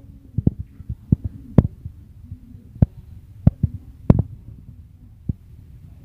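Hand tool working the edge of a marble slab: about a dozen sharp clicks and knocks at an uneven pace, over a low steady hum.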